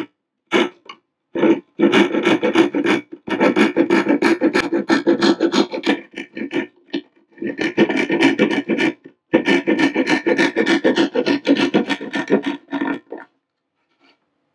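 Hand saw cutting through a thin wood cabinet wall in runs of quick back-and-forth strokes with short pauses, joining drilled holes into a rectangular cutout.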